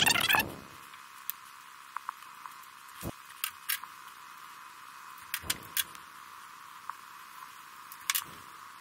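A short jangly metal rattle, then scattered light clicks and taps of hand tools being handled around the open valve train of a Datsun L-series engine, which is switched off.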